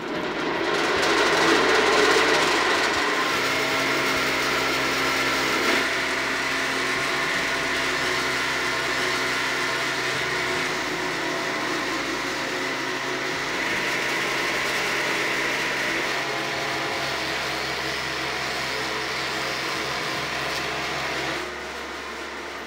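Sugarcane grinder running steadily with a loud mechanical whine as whole cane stalks are fed in and ground to fibre for juice analysis. The noise drops to a lower level near the end.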